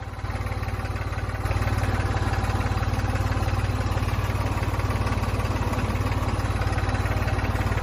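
An engine running steadily with a fast, low chugging beat. It gets louder about a second and a half in.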